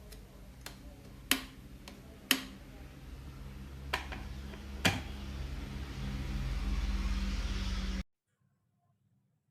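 Micromatic MCK-1850 electric kettle heating water: a low rumble and hiss that build steadily louder as the water nears the boil, with four sharp clicks over the first five seconds. The sound cuts off abruptly about eight seconds in.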